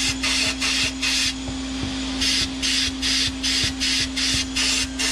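Sandblast cabinet gun blasting abrasive at a metal turbo actuator housing in quick pulses, about three loud hisses a second, with a short break about one and a half seconds in, over a steady hum.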